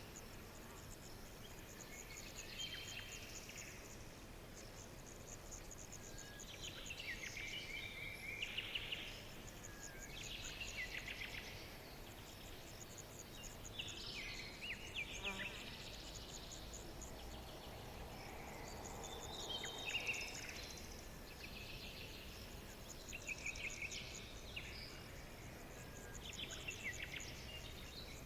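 Small birds singing short trilled phrases every couple of seconds, over a continuous high-pitched chirring of insects such as crickets.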